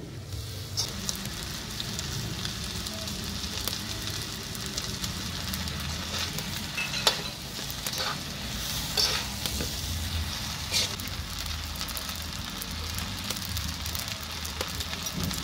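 Pancit bam-i noodles sizzling in a hot wok as they are tossed and stirred, with a few sharp clicks of the spatula against the wok.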